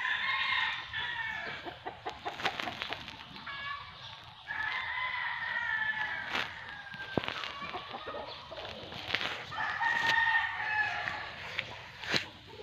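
Rooster crowing: three long crows, each lasting a second and a half to two seconds, with a few sharp clicks between them.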